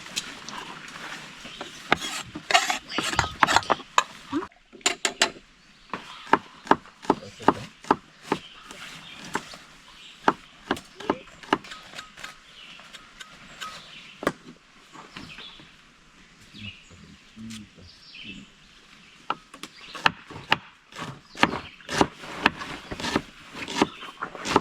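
Irregular sharp knocks and clicks of hard objects being handled, thickest in the first few seconds and again near the end, sparser in the middle.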